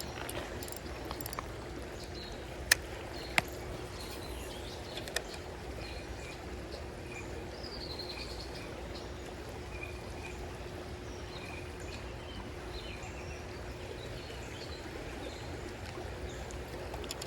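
Creek water running steadily, with faint bird calls here and there. Two sharp clicks come about three seconds in.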